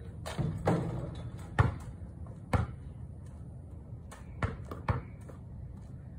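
A basketball bouncing on a paved driveway after a shot: a few quick hits in the first second, two strong single bounces about a second apart, then two softer ones near the end.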